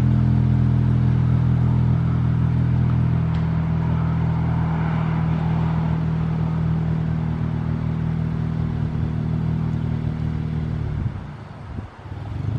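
Car engine running steadily at low revs, a constant low hum that dies away about eleven seconds in.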